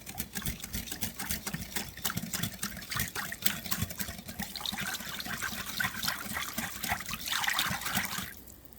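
A whisk beating a thin liquid sauce in a measuring cup: rapid, irregular clicking of the wires against the cup with the liquid sloshing, a splashier stretch near the end, then it stops.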